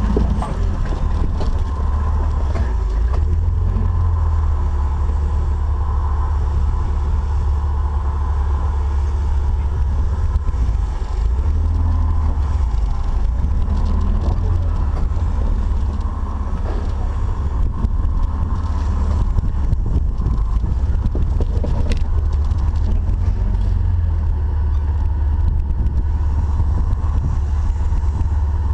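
Off-road Jeep 4x4 engine running steadily while driving, with a heavy low rumble.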